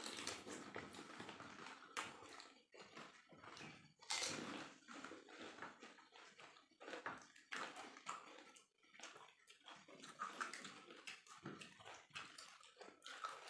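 Faint sounds of people eating pani puri (golgappa): irregular crunches of the crisp shells, wet slurps of the spiced water, and small clicks of fingers and puris against plates and the bowl.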